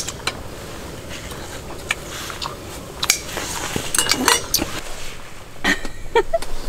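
Metal tongs and chopsticks clicking and scraping against bowls, plates and a pot, in scattered light clinks with a few sharper ticks.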